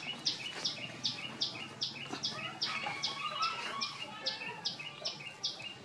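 A bird calling: short, high chirping notes repeated evenly, about two or three a second.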